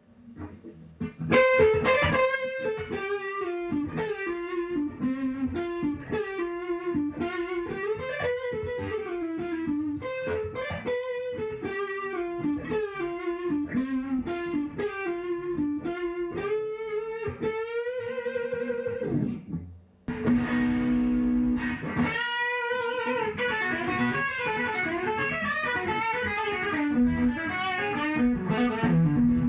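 Electric guitar, a Chibson Les Paul Custom copy, played through a Marshall JCM 800 combo amp: melodic single-note lead lines with string bends, breaking off briefly just before twenty seconds in and then starting a new phrase.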